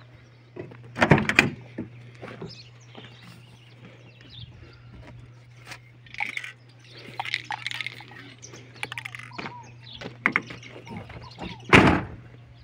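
Rummaging inside a Chevrolet Silverado pickup cab, with knocks and rustles of objects being moved and a louder clatter about a second in, then the truck's door slammed shut near the end. A steady low hum runs underneath.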